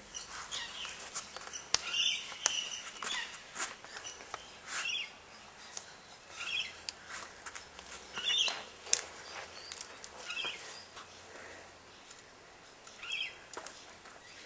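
Birds chirping: short, separate calls every second or two, with a few light clicks in between.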